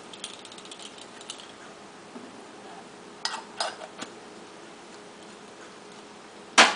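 Spice jars and a measuring spoon being handled on a kitchen counter: a few light clicks about three and a half seconds in, then one sharp knock near the end, the loudest sound.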